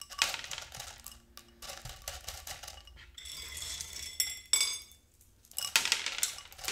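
LECA clay pebbles clinking and rattling against a plate as they are picked up by hand and dropped into a plant pot, in several short bursts with brief pauses between.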